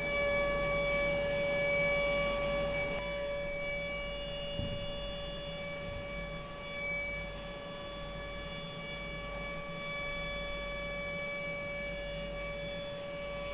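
CNC router spindle running with an end mill cutting an 8 mm aluminium plate, a steady whine made of several tones over a low hum.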